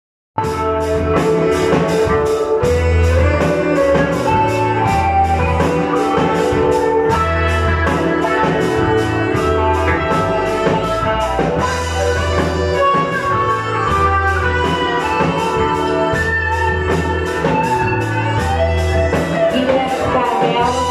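Live rock band playing an instrumental passage: electric guitar, bass guitar and drum kit, with cymbal strokes keeping a steady beat under low bass notes.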